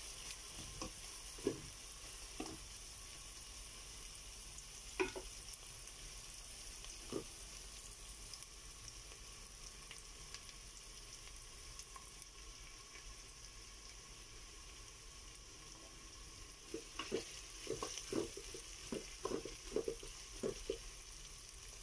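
Chopped onion and garlic sizzling steadily in hot oil in a metal pot. A wooden spoon stirring them knocks and scrapes against the pot a few times near the start, then in a quick run near the end.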